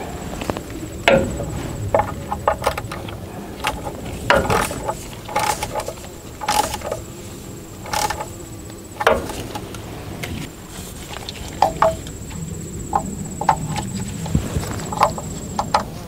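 Irregular clicks, taps and knocks of a ratchet and plastic wiring connectors being worked at the engine control module of a Cummins ISB diesel engine while its electrical connectors are reconnected, with a faint steady high-pitched whine behind.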